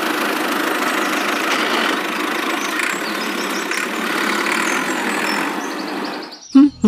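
Steady, rattling engine noise of a mini tractor, running without change until it cuts off abruptly near the end, where music starts.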